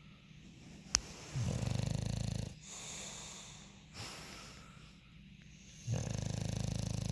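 Bulldog snoring in its sleep: two loud snores about four and a half seconds apart, each about a second long, with softer wheezy breaths between. A sharp click sounds about a second in.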